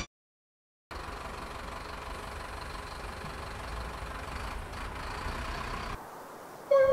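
A steady low mechanical hum with a faint constant whine above it, after a moment of silence at the start. It drops away about six seconds in, and near the end a single tone sliding down in pitch begins.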